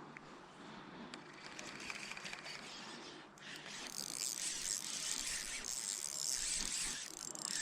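Shimano Vanford spinning reel being cranked, its gears whirring steadily from about three and a half seconds in, after a few faint clicks.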